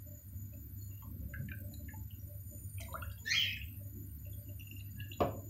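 Silicone spatula stirring watery lentil, rice and bulgur soup in a steel pot: faint liquid swishing over a low steady hum, with a brief louder swish about three seconds in and a light knock near the end.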